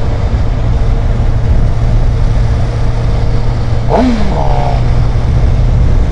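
Wind rushing over the helmet-mounted camera with the steady drone of a 2012 Suzuki GSX-R 750's inline-four engine cruising at motorway speed. About four seconds in, a short pitched sound swoops up and falls away.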